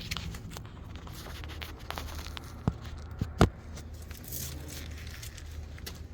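A few sharp clicks from the rear axle of a Cupra Born electric car, the loudest about three and a half seconds in, over a low steady hum. This is the clicking noise the car makes when shifted between drive and reverse.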